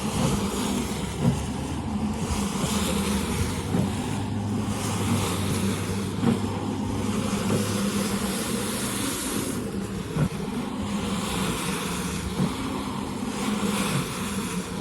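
A cleaning machine's motor running steadily with a broad hissing noise over it. A low hum in it drops away about halfway through.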